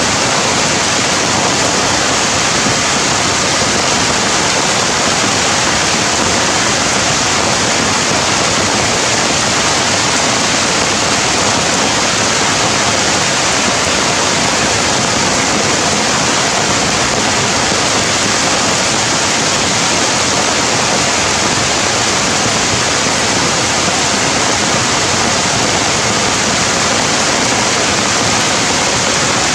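Loud, steady rushing noise that stays even throughout, with no bird calls standing out.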